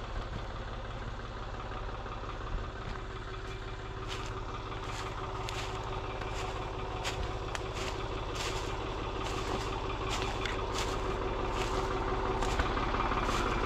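An engine idling steadily and growing slowly louder, with footsteps crunching along the driveway from about four seconds in.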